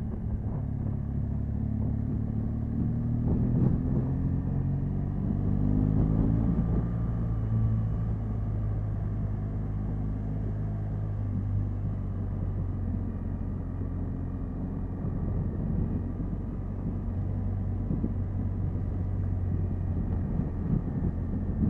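Motorcycle engine running while riding, heard from a camera mounted on the bike itself; its pitch climbs over the first several seconds, then holds steady.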